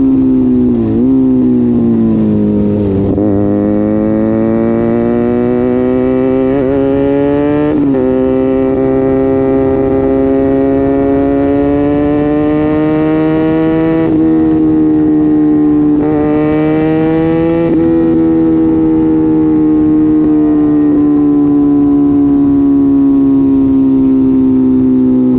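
Sport motorcycle engine and exhaust held at high revs while riding, the pitch drifting slowly down and back up with a few quick jumps in pitch along the way.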